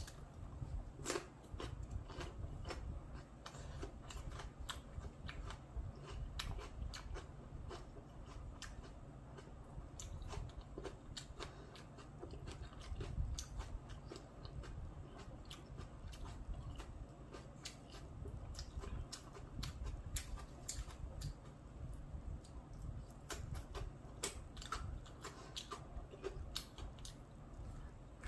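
Someone biting and chewing crispy fried spring rolls: irregular crunchy clicks and crackles, with a low steady rumble underneath.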